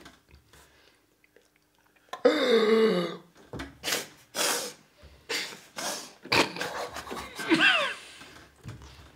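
Two men reacting with their mouths full of sour pickled umeboshi plums. About two seconds in there is a falling groan, then a string of short breathy exhales, coughs and snorts, and a brief high laugh near the end.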